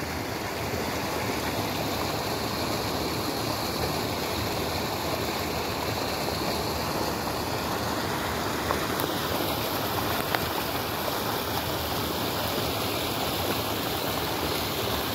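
Steady rushing of stream water pouring over a small drop beside a stone gabion wall.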